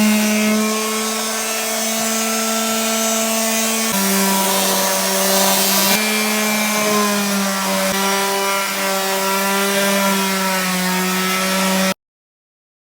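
Electric sander running steadily against wooden boards, a constant motor hum whose pitch shifts slightly twice; the sound cuts off abruptly about a second before the end.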